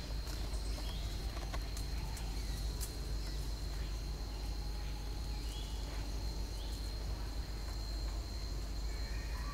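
Forest ambience: an insect drones on one steady high note, over a low rumble, with scattered faint clicks and a few faint short chirps near the middle.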